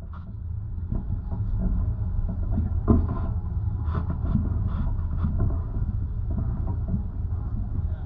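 Wind buffeting the microphone of a chairlift rider's action camera: a steady low rumble that wavers in strength.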